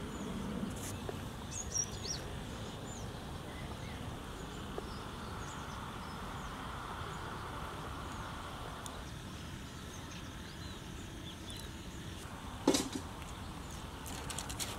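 Outdoor field ambience: a steady low hiss with scattered short bird chirps, and one brief louder sound near the end.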